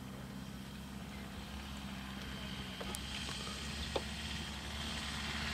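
Safari game-drive vehicle's engine idling with a steady low hum, with one short click about four seconds in.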